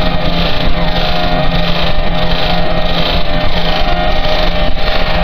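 Harsh noise music: a continuous wall of loud, distorted noise with a steady low hum and a held higher tone inside it.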